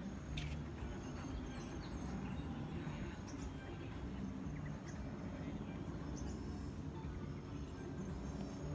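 Open-air ambience over tropical forest: a steady low rumble with faint, short bird chirps scattered through it.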